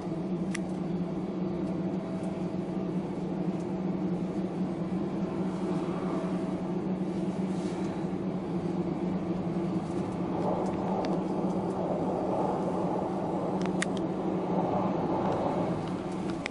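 A steady low mechanical hum, like an engine running, with a rushing noise that swells through the second half and a few faint clicks.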